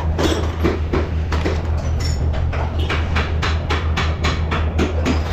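A rapid, regular run of sharp clicks or taps, about four to five a second, over a steady low hum.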